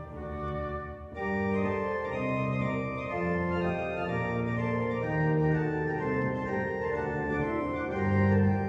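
Organ music: slow, sustained chords that shift every half second or so, growing fuller about a second in.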